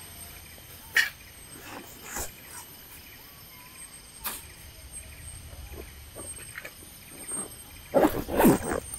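Tropical forest ambience with a steady high-pitched insect drone. A few sharp knocks or rustles come through, and a louder rough noise comes near the end.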